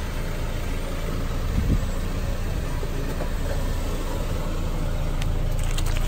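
Car engine running slowly with a steady low rumble as the car creeps forward, with a low thump about a second and a half in. Near the end comes a quick run of sharp pops and crackles as the tyre rolls over silicone pop-it fidget toys on asphalt.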